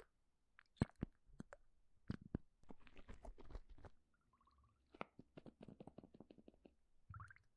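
Faint close-up clicks and crunchy crackles, scattered irregularly, with a quick run of about eight clicks a second near the end.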